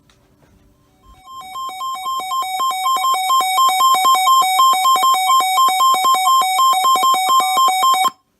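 Weather radio receiver's alert alarm: rapid two-tone beeping, about three or four beeps a second, that starts about a second in, swells louder over the next couple of seconds and then cuts off abruptly near the end. It sounds for a newly received warning.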